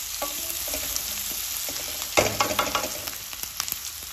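Sliced onions sizzling in hot oil in a kadhai while a spatula stirs and scrapes them around the pan as they fry toward browning. The sizzling and scraping get louder about halfway through.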